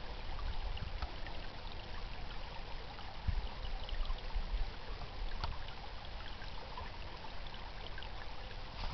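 A small brook babbling steadily, its flowing water trickling and gurgling with small scattered splashes.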